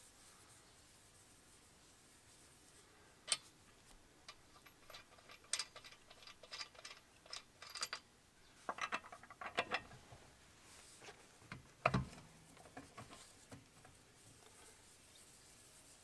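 Faint, irregular small metallic clicks and rattles as a car's wheel lug nuts are turned loose by hand on their studs, with one louder knock about three-quarters of the way through.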